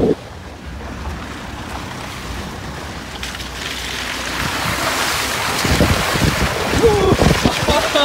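Car driving along a muddy track: a steady low rumble with tyres splashing through mud and puddles, and wind buffeting the microphone. The splashing grows louder over the second half.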